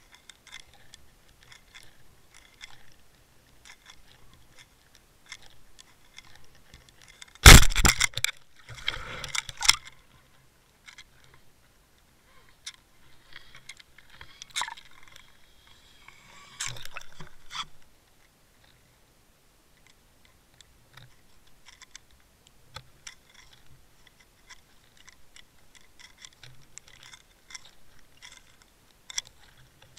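Underwater camera rig being towed through the water on a fishing line: irregular clicks, ticks and scraping rattles, with a loud burst of knocking and clattering about seven to ten seconds in.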